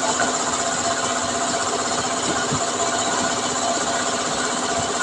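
A machine running steadily, with a fast, even clatter.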